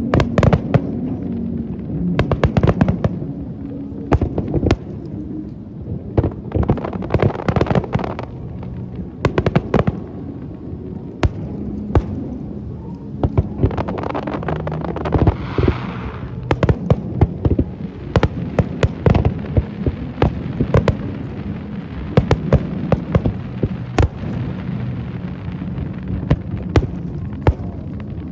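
Fireworks display: aerial shells bursting in a rapid, irregular barrage of sharp bangs, some in quick clusters, with a brief hissing crackle about halfway through. A steady low hum runs underneath.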